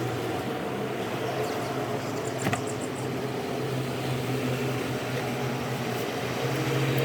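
Steady mechanical hum of running machinery, with one sharp click about two and a half seconds in.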